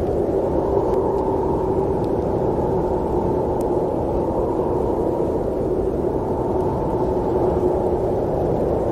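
Steady, low-pitched snowstorm wind blowing without letup.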